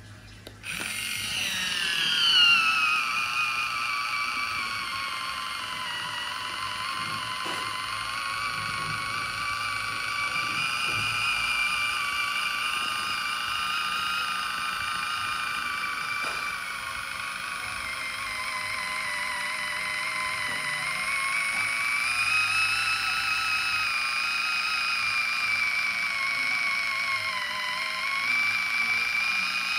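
Kitchen Mama Orbit One electric can opener's motor starting about half a second in at the press of its button, then whining steadily as it drives itself around the rim of a large can; the pitch drops over the first few seconds and then holds, wavering slightly.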